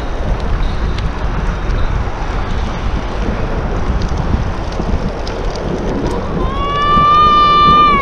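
Wind buffeting the microphone over the steady rolling noise of a bicycle on a paved path. About six and a half seconds in, a high-pitched voice cry starts with a slight rise in pitch and is held for about a second and a half, louder than everything else.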